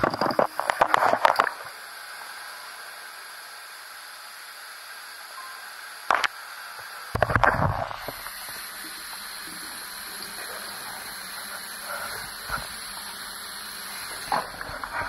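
Bath tap running into a foamy tub, a steady hiss of water, broken by louder splashes in the first second or so, at about six seconds, from seven to eight seconds, and near the end.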